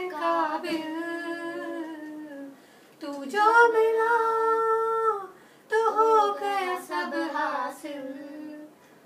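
A woman and a boy singing a Hindi film song without accompaniment, in three long held phrases with short breaks between them.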